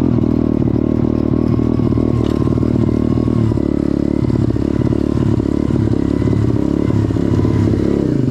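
Pit bike's small single-cylinder engine running steadily at low throttle as the bike slows to a stop, on a bike whose owner reports carburetor problems.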